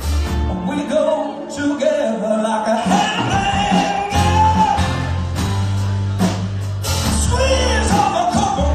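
Band playing live on acoustic guitar, electric guitar, bass guitar and drum kit, under a sung melody with one long held note in the middle.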